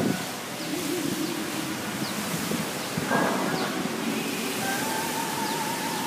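Fountain water jets spraying and splashing with a steady rushing hiss, with a louder surge of spray about three seconds in. Faint music plays over it, with a wavering held note in the second half.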